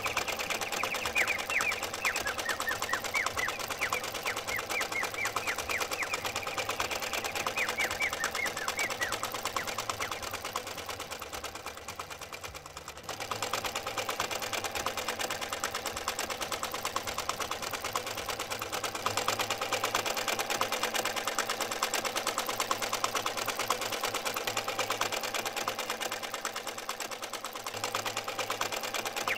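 Small electric motor and gears of a homemade miniature tractor running steadily with a fast whirring, ticking rattle as it drives through sand, briefly dipping about halfway through.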